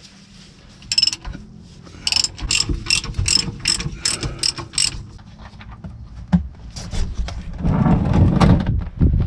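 Hand ratchet clicking in quick strokes, about two or three a second, as a stiff differential drain plug is backed out. Near the end, gear oil starts pouring from the drain hole into a plastic drain pan with a rushing splash.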